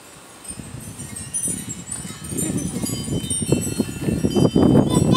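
Wind chimes ringing in a breeze, with wind rumbling on the microphone that grows louder through the second half.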